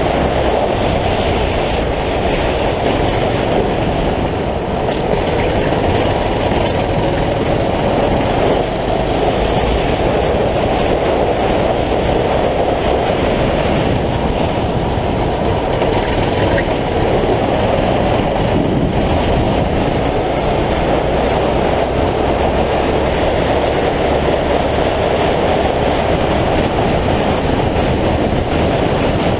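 Racing kart's 9 hp engine running hard through a lap, a loud steady drone that hardly changes.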